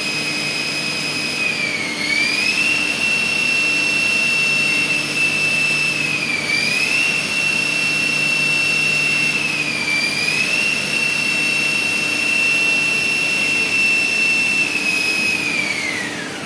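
A high-speed motor running with a steady high whine; its pitch dips briefly three times and then falls away near the end as it winds down.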